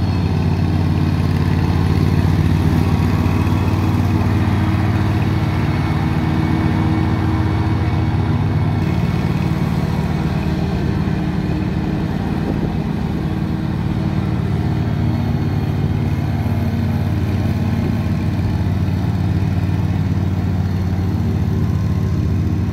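Ride-on lawn mower's engine running steadily while it mows grass.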